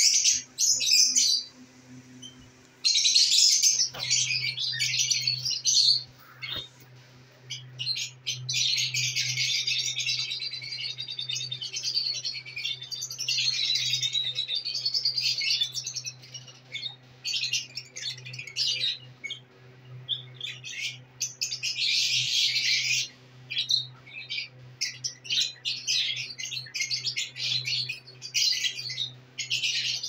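A flock of caged lovebirds chattering: dense bursts of shrill, high chirps and squawks, broken by brief lulls a couple of seconds in and again around six to eight seconds in.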